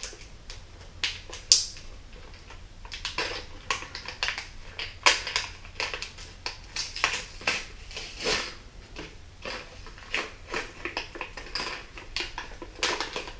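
Fishing-lure packaging being handled and pulled open, with irregular crinkles, snaps and clicks of stiff plastic and card.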